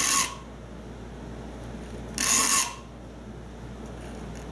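Saw file rasping across the steel teeth of a Spear and Jackson dovetail saw, filed straight across for a rip cut. There are short strokes about two and a half seconds apart: one right at the start and another about two seconds in.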